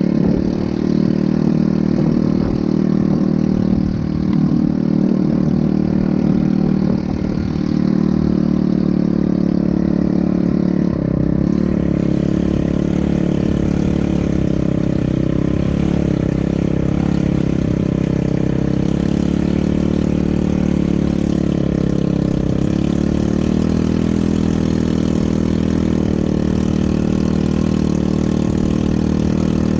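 ATV engine running steadily, its pitch shifting a little up and down with the throttle.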